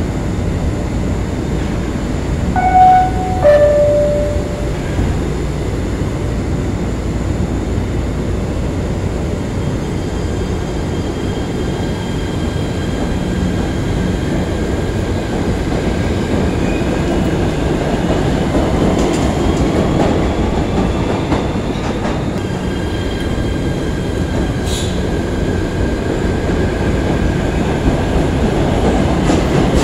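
PATH subway train at the platform: two loud tones of a two-tone signal about three seconds in, the second lower, then the train pulls out with a steady rumble of wheels and cars and a faint rising whine as it speeds up.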